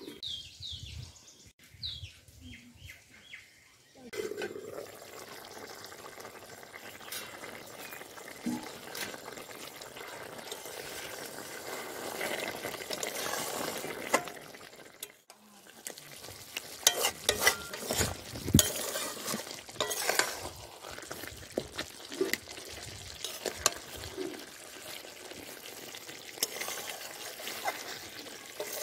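Chicken curry sizzling and bubbling in a metal pot, with a flat metal spatula scraping and clinking against the pot as the curry is stirred. The clinks come thick and sharp in the second half.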